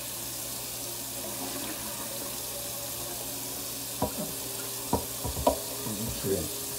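Kitchen tap running steadily into a steel sink while raw chicken breasts are rubbed and rinsed in a stainless steel bowl. From about four seconds in come a few short splashes and knocks of water and bowl.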